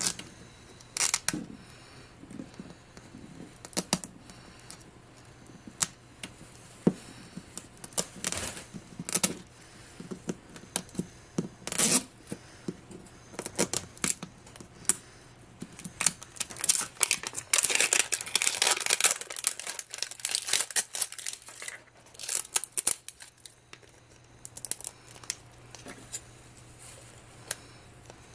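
Thin printed plastic wrap being picked at, peeled and torn off a plastic toy capsule ball: scattered crinkles, rips and clicks, thickening into a long stretch of steady crinkling past the middle.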